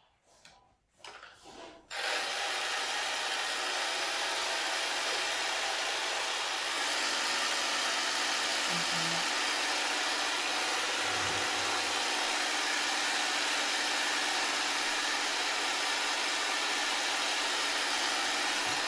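Handheld electric vibration massager running with a steady buzz, starting abruptly about two seconds in. The buzz grows a little fuller about seven seconds in and stops at the very end.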